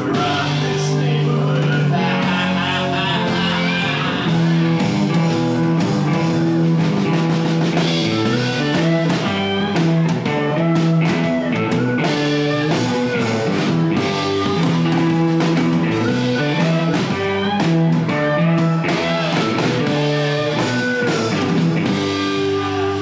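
Live rock band playing with electric guitar, bass guitar and drums.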